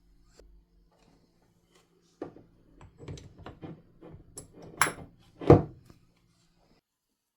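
A run of clicks and knocks from handled hard parts, starting about two seconds in, with two louder knocks about five seconds in.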